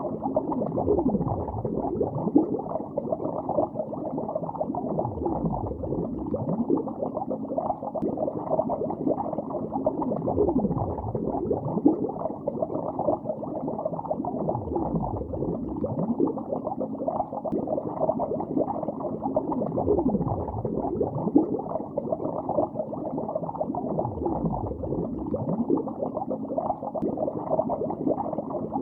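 Bubbles rising underwater in a lake, heard below the surface: a dense, continuous muffled bubbling full of short rising and falling pitch sweeps.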